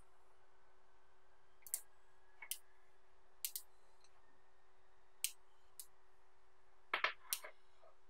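Small magnetic balls clicking sharply as they snap together one at a time: a few scattered clicks, then a quick run of louder clicks near the end.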